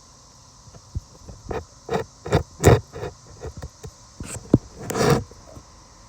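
Irregular rustles and soft bumps of handling close to the microphone, the loudest in a cluster around the middle, over a steady high-pitched hiss.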